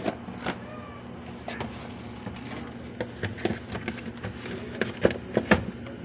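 Scattered light clicks and knocks of food packages and containers being handled and moved about in an open fridge, over a steady low hum.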